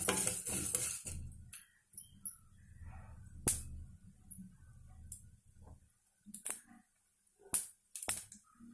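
Chana dal, urad dal and curry leaves roasting in oil in a kadai. A spoon scrapes through them in the first second, then a few sharp, scattered crackles and pops come from the frying curry leaves.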